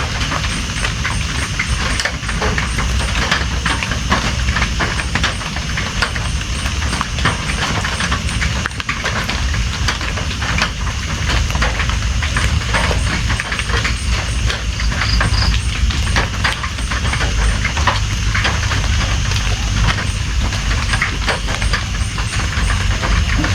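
Steady heavy rain, with many separate drop hits close by over a low, steady rumble.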